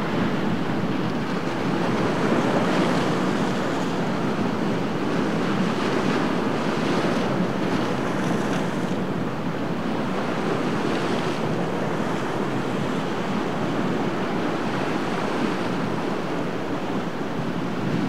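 Surf and breaking waves with wind buffeting the microphone: a steady, fairly loud rush of water and wind.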